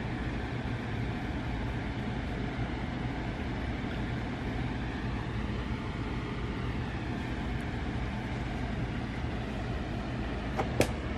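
Steady low hum and rushing noise, with two short clicks near the end.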